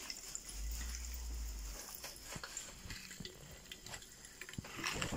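Popping candy packet being handled and opened: faint crinkling with scattered small clicks and crackles, over low handling rumble in the first half.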